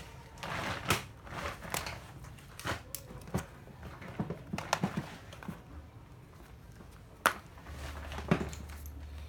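Irregular clicks and knocks of plastic cordless drills being handled, picked up and set down, with the two sharpest knocks about seven and eight seconds in.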